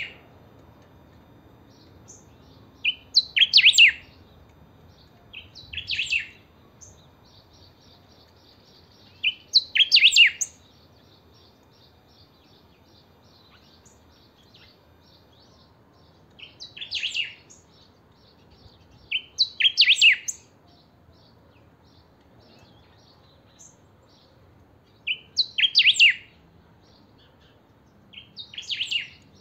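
Caged picahueso (pepitero gris, greyish saltator) singing in full voice: loud short phrases of about a second each, high in pitch, repeated every few seconds with pauses between.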